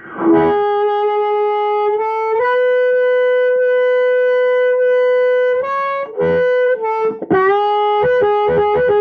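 Harmonica in C played through a Hohner Harp Blaster microphone and a Roland Cube Street amplifier: long held, amplified notes, a quick bend down and back up a little past seven seconds in, and faster notes near the end. The player suspects the bass and gain are turned up too much.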